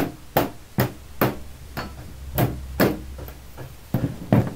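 A run of sharp metal knocks, about two a second with a short lull in the middle, as a hand tool taps a new aluminium door skin into place under the old skin's edges.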